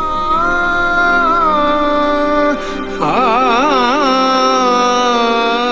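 Indian classical vocal song playing on a Mivi Roam 2 portable Bluetooth speaker: a voice holding long notes over a steady drone, breaking into quick wavering ornaments about halfway through.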